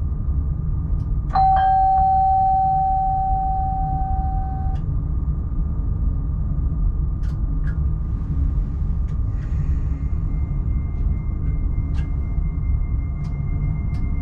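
Steady low rumble in the cab of an X40 electric multiple unit. About a second in, a single bell-like chime rings once and fades over about three seconds. About ten seconds in, a faint steady high tone starts, with a few light clicks.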